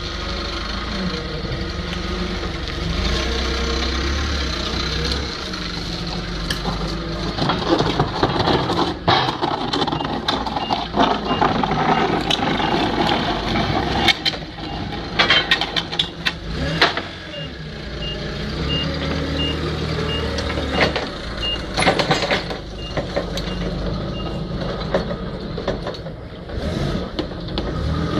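Forklift engine running and changing speed, with its reversing alarm giving a run of evenly spaced high beeps twice, the longer run a little past halfway. Knocks and thuds of pallets and boxes being handled come in between.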